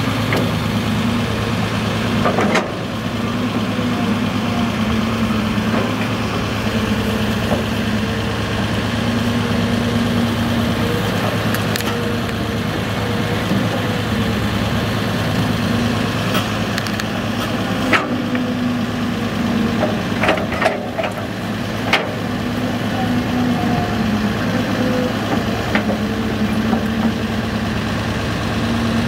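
CAT 320C hydraulic excavator's diesel engine running steadily, its note swelling and easing every few seconds as the hydraulics take load through its swing-and-dump cycles into a dump truck. A few sharp knocks and clatters come through, the loudest about 18 and 21 seconds in.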